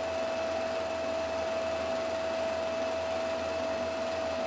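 Film projector running, playing back an old reel: a steady mechanical whirr of its motor and fan with a constant humming tone.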